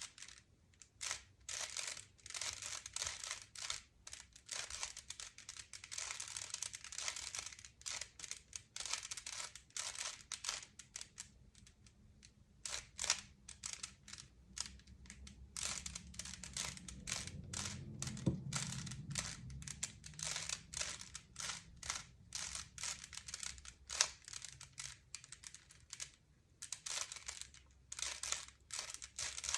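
Rubik's Cube being twisted by hand: a quick, irregular run of plastic clicks and rattles as the layers turn, pausing briefly now and then.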